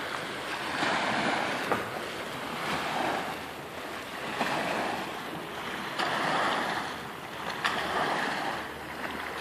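Small river waves washing up onto a concrete boat ramp, the wash swelling and fading about every two seconds.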